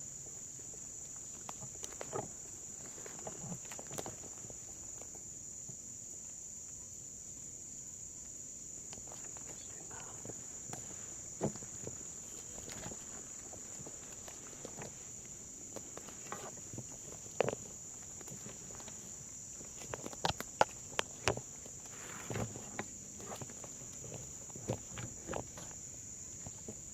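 Steady, high-pitched chorus of crickets, with scattered short clicks and rustles throughout.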